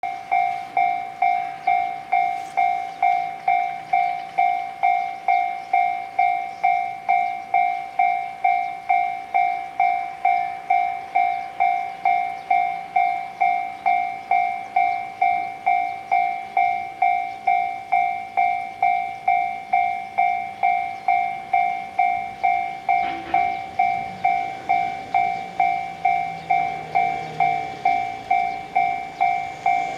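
Japanese level-crossing warning bell ringing its repeated electronic 'kan-kan' a little under twice a second, signalling that the crossing is closed for an approaching train.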